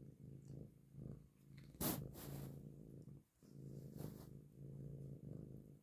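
Orange-and-white kitten purring steadily as its head and cheek are rubbed, with a brief louder noise reaching all frequencies about two seconds in and a smaller one about four seconds in.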